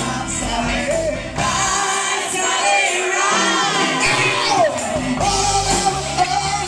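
Live rock band playing with male and female singers on microphones. For about two seconds midway the bass drops away, leaving mostly voices sliding in pitch, then the full band comes back in.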